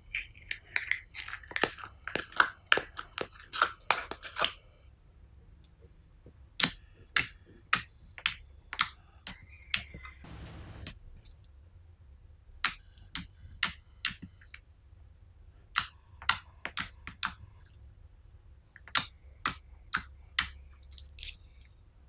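Clear purple slime being poked, pressed and stretched by hand, giving sharp wet clicks and pops: a dense crackling run over the first few seconds, then single pops spaced about half a second to a second apart. There is a short squelching hiss about halfway through.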